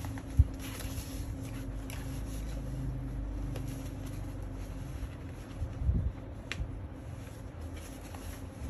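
Fabric rustling as the padded seat liner and straps of a Babyzen YOYO2 stroller are handled and pressed into place. There is a single thump about half a second in, a few soft knocks around six seconds in and a short click just after, over a steady low hum.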